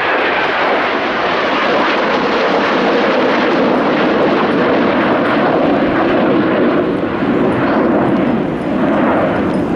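Three Panavia Tornado jets, each powered by two RB199 turbofans, passing close overhead in formation: a loud, steady jet roar.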